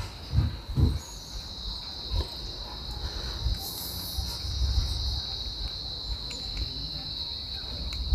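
Insects droning steadily in one unbroken high-pitched note, with a few soft low thumps near the start.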